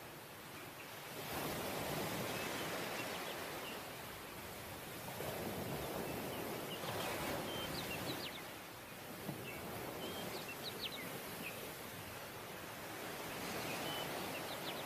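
Sea surf breaking and washing up a sandy beach, swelling louder three times as waves come in, with a few short high chirps in the middle.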